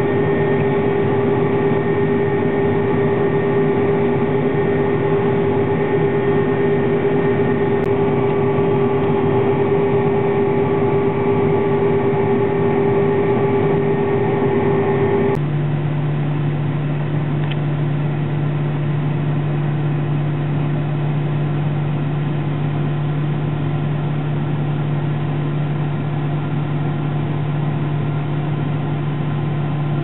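John Deere 7721 pull-type combine running while it harvests wheat, a steady machinery drone with a strong steady tone over it. About halfway through, the sound switches abruptly to a lower, steady engine drone.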